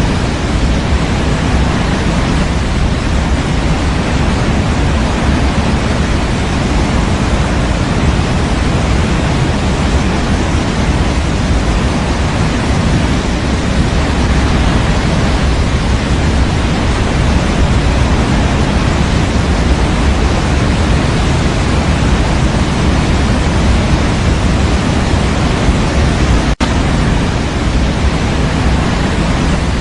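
Steady white noise for baby sleep, an even hiss weighted toward the low end, with one momentary dropout near the end.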